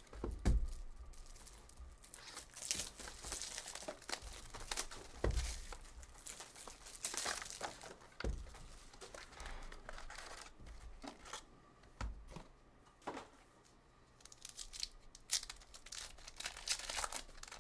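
Trading card packs being torn open by hand: irregular tearing and crinkling of the pack wrappers, with a few short low thumps.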